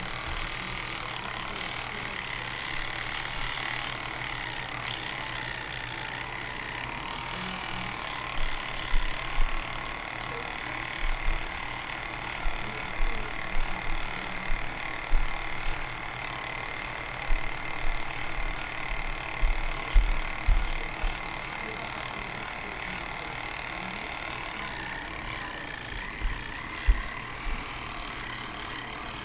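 Electric toothbrush running with a steady buzzing hum while a cat chews and rubs against it, with irregular low bumps and knocks through the middle and again near the end.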